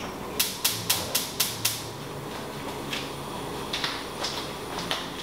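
A quick run of six sharp, light clicks at about four a second, followed by a few fainter scattered clicks.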